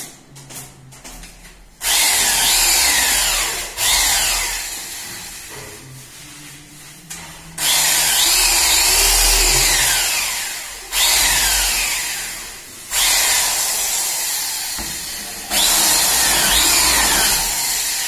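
Electric hand drill boring holes into a door to fit a rim deadbolt. It runs in about six bursts, each starting sharply and easing off, with the pitch sweeping as the bit works through.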